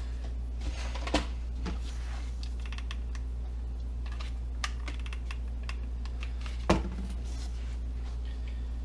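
Scattered clicks and taps of hands working on a small RC plane during its build, the loudest a sharp knock about seven seconds in, over a steady low hum.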